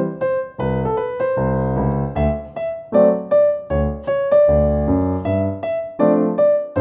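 Background piano music: a light melody of struck notes, each ringing and fading, several a second.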